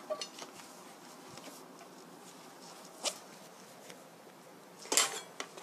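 Handling noise on a kitchen table: a few light clicks and knocks as things are moved and set down. The loudest is a short cluster of knocks about five seconds in, with a brief ring.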